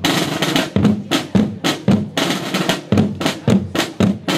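Snare drums and a bass drum of a fife-and-drum corps playing a marching cadence: sharp strokes about twice a second, with snare rolls between them.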